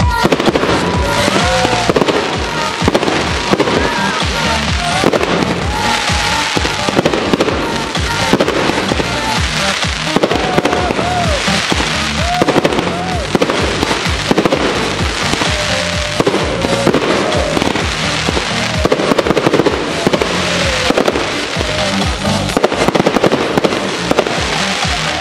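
Fireworks display: aerial shells launching and bursting, many bangs in quick succession, with music playing along.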